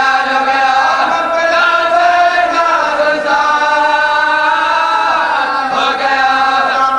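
Male voice chanting an Urdu marsiya, a Shia elegy, in long held notes that glide and waver from one pitch to the next, with no instruments.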